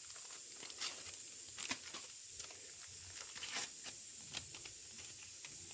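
Small sachets of baking powder being torn open and emptied: a few short, crinkly tearing rustles and light ticks.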